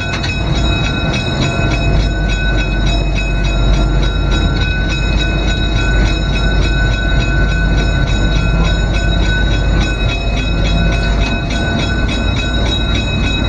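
GE 44-ton diesel-electric switcher locomotive heard from inside its cab while rolling slowly: a steady diesel engine rumble with a few constant high whining tones over it.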